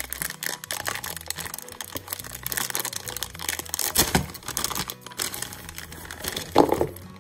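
Clear plastic bag crinkling and tearing as hands pull it open, the loose plastic toy parts inside shifting. It gets louder twice, about four seconds in and again near the end.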